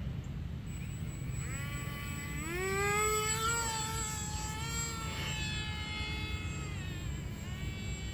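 Electric motor and propeller of a small RC airplane whining in flight, rising in pitch about two and a half seconds in as the throttle goes up, holding, then falling away near the end. Wind rumbles steadily on the microphone underneath.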